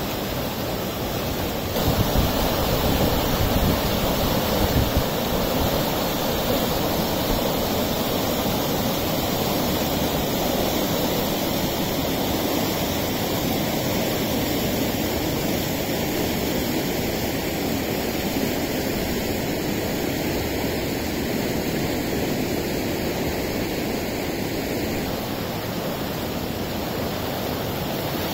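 River in flood: fast, muddy floodwater rushing and churning in a steady loud roar of water. A few low thumps on the microphone about two to five seconds in.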